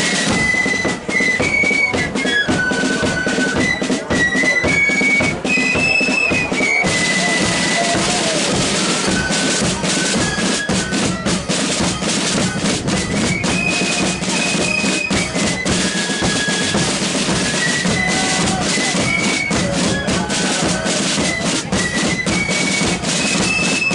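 Marching flute band playing a tune: flutes carry the melody over rapid side-drum rolls and a steady bass drum.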